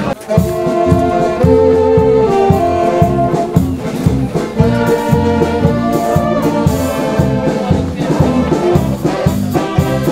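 Brass music led by trumpets and trombones over a steady low beat.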